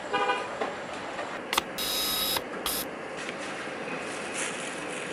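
Steady city street noise, broken about two seconds in by two short, loud hisses of air or spray, the first lasting about half a second.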